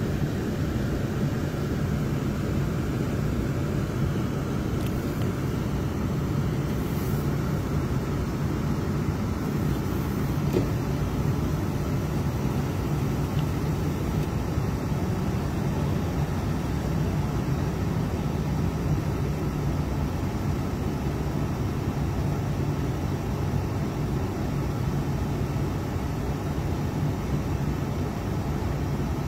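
Steady engine and road noise heard from inside the cab of a vehicle on the move, with a constant low drone.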